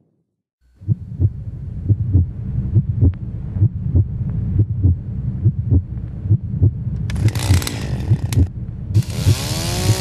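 A low, heartbeat-like throb beating about twice a second starts a moment in, and from about seven seconds a Stihl chainsaw revs hard twice, its pitch rising and falling, over the throb.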